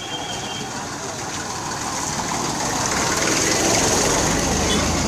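A motor vehicle's engine running close by over street noise, growing louder from about two seconds in.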